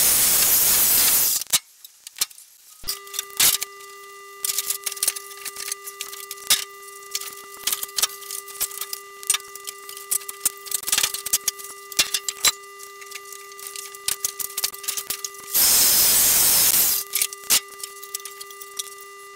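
A reciprocating saw cuts through engine-bay timber in two short bursts, one at the start and one about sixteen seconds in. Between the bursts come knocks and clatter as old planks are pulled out and handled. A faint steady whine runs from about three seconds in.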